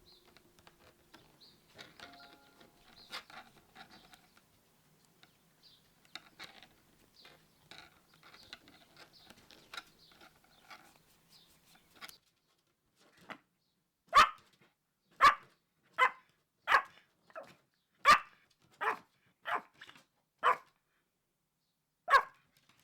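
Pomeranian barking about ten times in short, sharp barks, starting about halfway through, asking for a treat. Before the barking there are faint clicks and rustles.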